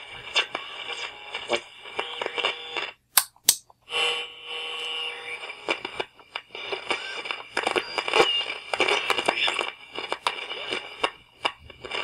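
Sony battery-powered AM radio being tuned across weak signals: crackling static with steady whistling tones between stations. The sound nearly cuts out for about a second around three seconds in, broken by a few sharp clicks, then the static and whistles come back.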